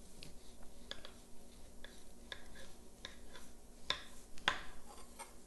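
Large kitchen knife pressed down through the edge of a baked brownie, its blade faintly clicking and tapping against the countertop: a scatter of light ticks, with two sharper clicks near the end.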